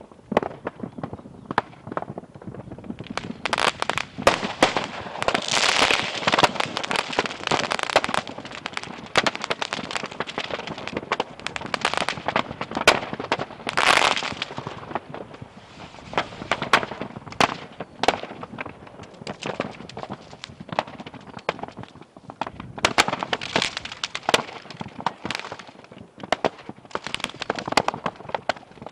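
A pit of consumer fireworks burning off: a dense, continuous crackle of firecrackers and small charges popping, with heavier flurries about four to eight seconds in, around fourteen seconds and again near the end.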